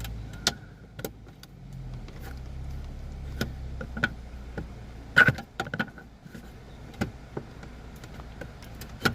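Irregular clicks and knocks of a flathead screwdriver and hands working plastic steering-column trim tabs and a rubber boot into place, with the loudest knock about five seconds in, over a low steady hum.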